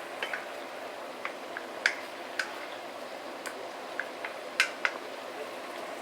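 Chicken in tomato sauce and chicken stock simmering in a wok: a steady bubbling with scattered sharp pops, about a dozen, at irregular moments.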